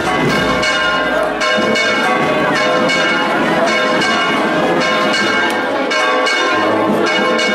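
Church bells ringing a fast peal, many strokes overlapping into a continuous clangour.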